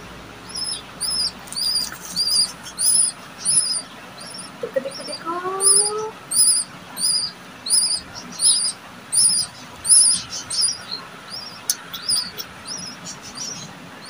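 Baby parrot chick calling in a long run of short, high chirps, one roughly every half second, with a short pause near the middle.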